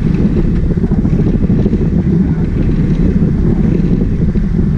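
Wind buffeting the microphone over the steady low drone of the sport-fishing boat's engines running underway.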